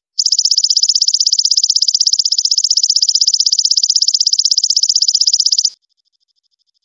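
Belalang emas (golden katydid) singing: a loud, rapid, high-pitched pulsed buzz that starts just after the beginning and cuts off suddenly near the end. A fainter, high pulsed trill runs behind it.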